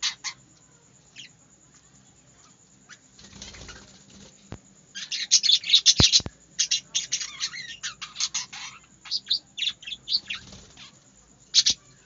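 Budgerigars chattering with high chirps and warbles. The chirps are sparse at first, then come thick and fast from about five seconds in until near the end, mixed with a couple of sharp knocks and wing flutters.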